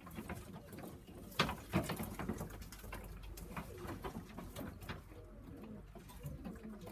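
Racing pigeons cooing in a loft, with a few sharp taps and clicks among them, the loudest about one and a half seconds in.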